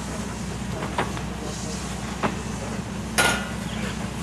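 Railroad passenger coaches and a caboose rolling slowly past with a steady low rumble, broken by three sharp metallic clanks about a second apart. The loudest clank comes about three seconds in and rings briefly.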